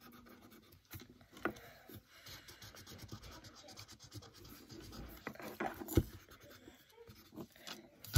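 Felt-tip marker scratching and rubbing on paper while colouring in, with a few soft knocks, the loudest about six seconds in.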